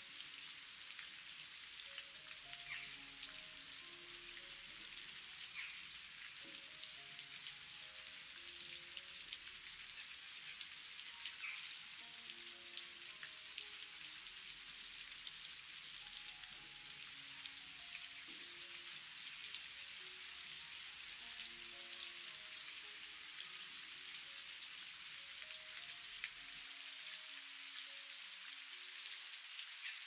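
Steady rain falling, many fine drops pattering on a wet surface, with quiet music of soft held notes underneath.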